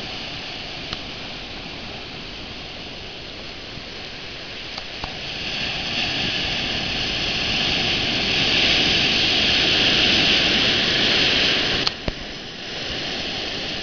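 Ocean surf churning around the pier's pilings: a steady rushing wash that swells as a wave breaks and rolls in, loudest past the middle, then drops off sharply near the end.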